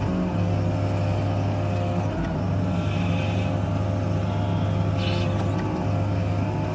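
Hydraulic excavator's diesel engine running as a steady low drone, heard from inside the cab while the boom and bucket work snow, with a brief hiss about five seconds in.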